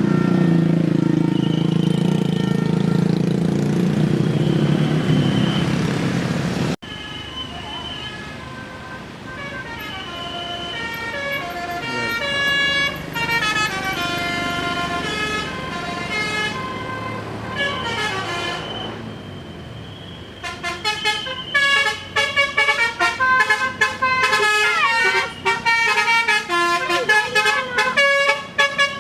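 Tour buses' Basuri telolet horns, sets of musical air horns, playing tunes note by note. For the first seven seconds a bus engine runs heavily under a few horn notes, then it stops suddenly. After that come slower stepped horn melodies, and from about twenty seconds in, fast choppy runs of notes, the loudest part.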